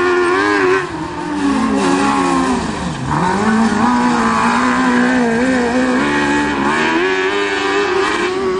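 Engine of a Piaggio Ape three-wheeler cross racer revving up and down as it races round a dirt course. The pitch drops sharply about three seconds in, then holds fairly steady before climbing again near the end.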